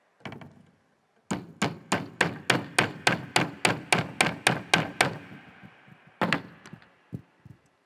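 A nail being hammered into a wooden cross. After a first blow comes a quick, steady run of about fourteen strikes, roughly three to four a second. One more strike lands a second later.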